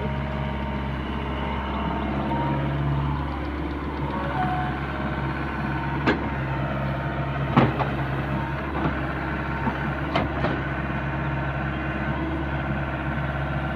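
Heavy diesel machine's engine running steadily, with a few sharp knocks in the second half.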